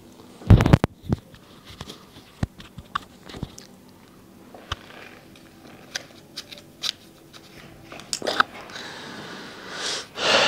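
Slips of paper being handled and crinkled for a draw, heard as a scattered run of sharp crackles and light knocks, the loudest pair about half a second in.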